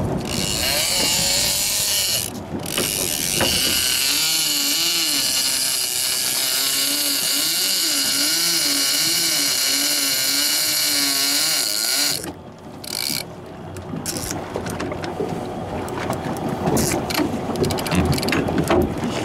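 Fishing reel's drag clicker buzzing steadily as line peels off the spool, with a wavering tone in it, for about twelve seconds before it stops. After that come scattered clicks and knocks over boat noise.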